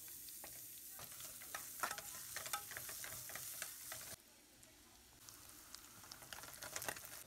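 Sliced onions sizzling in hot oil with garlic, with a spatula scraping and clinking against the pan. The sizzle drops away abruptly about four seconds in and picks up again a second later.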